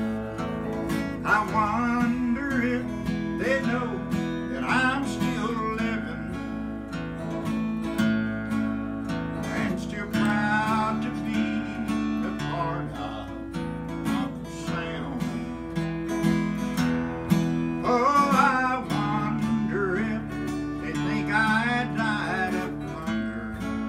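Acoustic guitars playing without singing: steady strummed chords under a picked lead melody whose notes bend in pitch.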